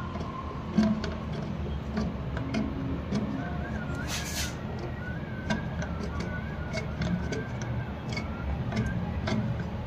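Scattered small clicks and ticks as the plastic adjustment nut of a toilet cistern's float valve (ball cock) is turned by hand under water to raise the fill level, over a low steady background rumble. A faint wavering tone runs through the middle, and a short hiss comes a little past halfway.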